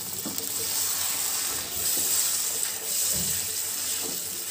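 Butter chicken gravy sizzling and bubbling in a hot non-stick pan, with freshly added water being stirred in by a wooden spatula. A steady hiss with a few soft scrapes and taps.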